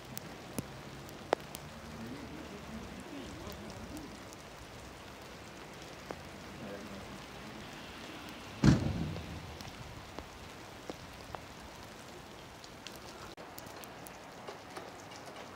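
Light sleet falling outdoors: a steady soft hiss with scattered small drop clicks, and one louder thump about nine seconds in.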